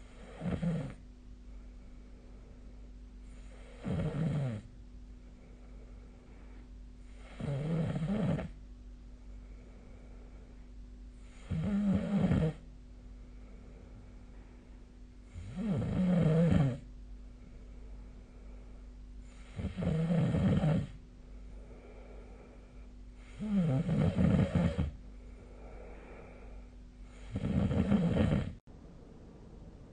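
A sleeping person snoring: eight rough snores at an even pace, about one every four seconds, each lasting a second or so, with quieter breaths between them. A faint steady hum runs underneath.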